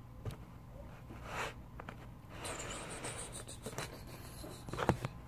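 Faint rustling and a few soft taps from a hardcover book being handled and moved up close to the microphone, over a low steady hum.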